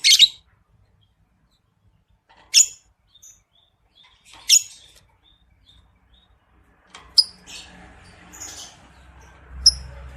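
Lovebird giving short, shrill single chirps about every two seconds, the first the loudest, with a few softer chirps between. From about seven seconds in, a low rumble and rustling noise sits under the calls.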